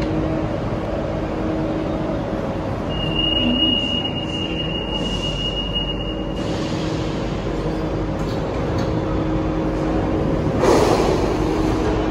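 Alstom NS-16 rubber-tyred metro train running, heard from inside the car: a steady drone of running gear and motors with low humming tones. A thin high whine sounds from about three to six seconds in, and a brief louder burst of noise comes near the end.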